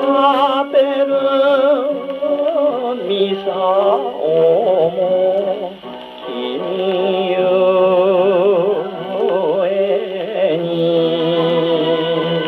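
A 1953 shellac 78 rpm record of a Japanese popular song with orchestral accompaniment, playing acoustically on a Columbia G-241 portable wind-up gramophone. The music has wavering, vibrato-laden melody lines and sounds thin, with no highs, as is typical of acoustic 78 playback.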